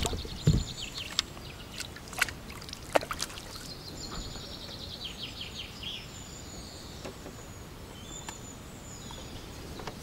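Water splashing from a hooked bream being played on a pole, with a few sharp splashes in the first three seconds. Small birds sing trilling phrases and chirps.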